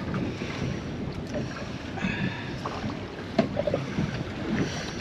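Wind buffeting the microphone and choppy sea water slapping around a small boat, a steady rushing noise with a few faint knocks near the middle.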